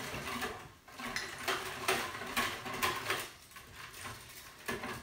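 A utensil stirring brine in a plastic bucket, clicking and knocking irregularly against the bucket's sides as the liquid is mixed.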